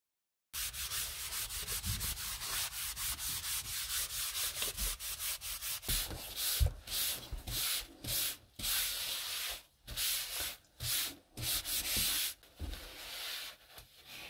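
A white wipe rubbed by hand across a laminate floor in brisk back-and-forth strokes. It starts about half a second in with quick, even strokes, and from about six seconds in the strokes come singly with short pauses between them.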